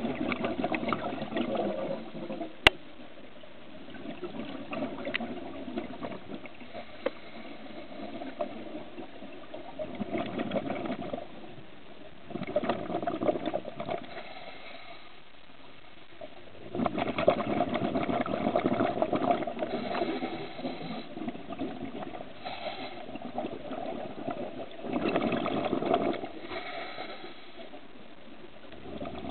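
Scuba diver's regulator exhaust heard underwater: exhaled bubbles rush out in bursts of one to four seconds, every few seconds, with quieter gaps between breaths. A single sharp click sounds near the start.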